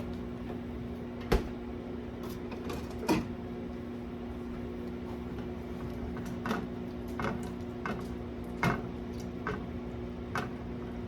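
A steady electric hum from a kitchen appliance, with light clicks and knocks of cookware and utensils scattered through, about nine of them, a few louder than the rest.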